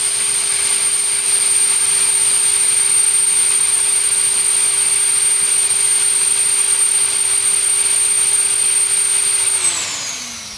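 Wet/dry shop vacuum motor running steadily with a high whine, its exhaust air blowing through a sprinkler line to purge the water from it. Near the end the motor is switched off and winds down, its whine falling in pitch as it fades.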